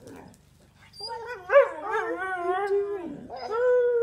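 A dog howling in long, drawn-out whines: a wavering call from about a second in, then a second, steadier one starting near the end.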